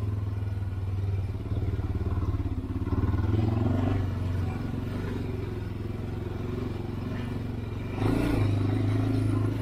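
Honda 400EX ATV's single-cylinder four-stroke engine running at trail speed. It gets louder with more throttle about eight seconds in.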